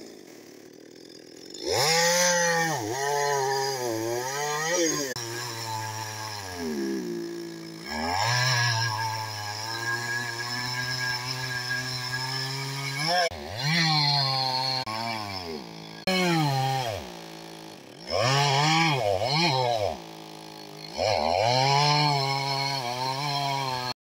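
Petrol two-stroke chainsaw cutting through a fallen log, its engine revving up and down again and again as the chain bites and eases off. It drops back to a low idle at the start and again for a few seconds late on.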